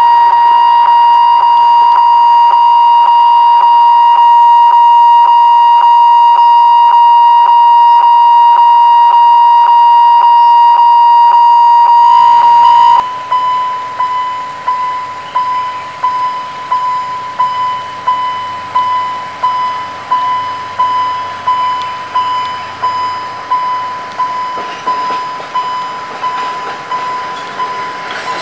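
Railway level crossing warning signal sounding ahead of an approaching train: a loud steady electronic tone pulsing about twice a second, which about thirteen seconds in changes to a ringing ding repeated about one and a half times a second.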